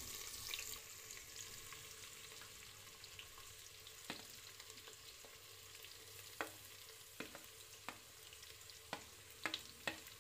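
Sliced onions sizzling as they drop into hot mustard oil in a pressure cooker, pushed off a plate with a plastic spatula. The hiss is strongest in the first second, then fades to a faint sizzle, broken by scattered sharp clicks of the spatula against the plate and the cooker, most of them near the end.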